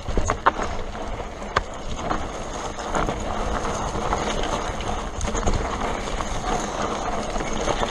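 Mountain bike rolling fast down a rocky dirt trail: tyres running over dirt and stones and the bike rattling, with a few sharp knocks in the first two seconds as it hits rocks.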